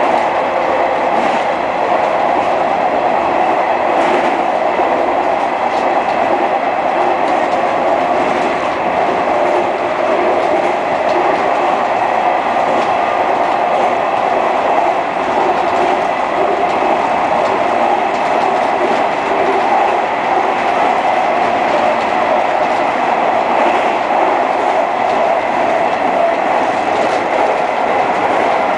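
JR 201 series electric commuter train running along the line, heard from inside the driver's cab: a steady rolling rumble of wheels on rail, with a few faint clicks.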